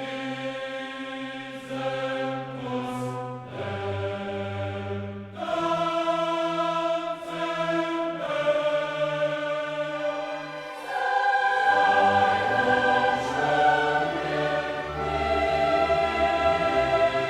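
Background music of slow, sustained chords that change every second or two, growing louder about halfway through.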